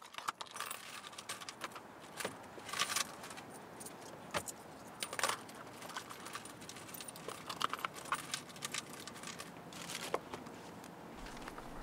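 Keys jangling, with small metal items clinking and rattling in short, irregular bursts.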